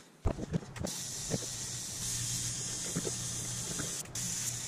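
TIG welding arc running steadily along a grille-shell seam: an even hiss with a steady low hum under it. The arc breaks off briefly near the end and strikes again; a few short clicks come before it starts.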